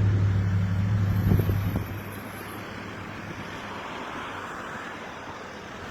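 A vehicle engine running with a steady low hum that falls away about two seconds in, leaving a steady haze of road and traffic noise.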